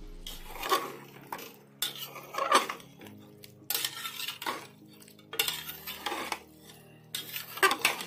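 Flat metal spatula scraping and knocking against the sides of an aluminium pressure-cooker pot while stirring chicken pieces and turmeric, in irregular strokes about once a second.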